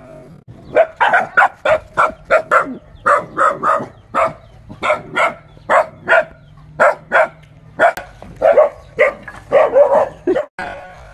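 A dog barking over and over in quick runs of short barks, about two to three a second, with brief pauses between runs.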